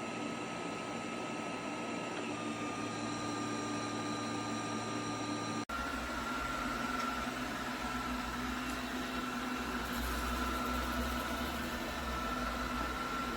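Lubluelu L20 robot vacuum running: a steady whir of its suction fan and brushes, with a high whine over it. About six seconds in, the sound changes abruptly to a deeper rumble with a slightly different whine.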